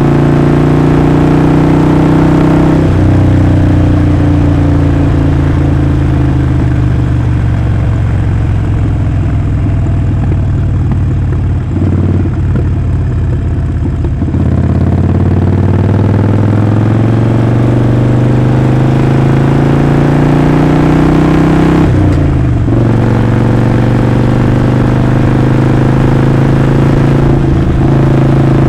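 Harley-Davidson Sportster 48's air-cooled 1200 cc V-twin running under way, its exhaust note loud and steady. The pitch drops about three seconds in, then climbs steadily under acceleration in the middle, with brief breaks in the sound near the end like gear changes.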